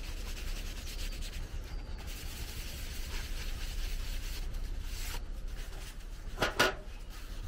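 A cloth rubbing Leder Gris wax into the steel head of a Husqvarna carpenter's axe, a continuous scratchy scuffing with uneven strokes. About six and a half seconds in there is one brief, louder, sharp sound.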